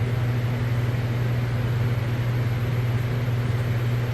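Steady low machine hum with an even rushing noise over it, unchanging throughout.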